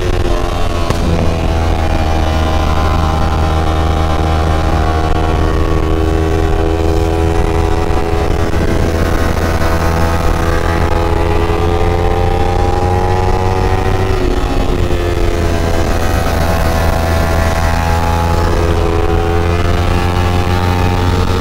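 Kawasaki ZX-25R's 249 cc inline-four engine running at high revs on the move, its pitch dropping and climbing again with throttle and gear changes about 14 and 18 seconds in.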